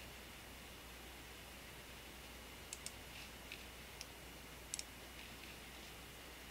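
Faint computer mouse clicks, a few single clicks and quick double clicks around the middle, over a faint low hum.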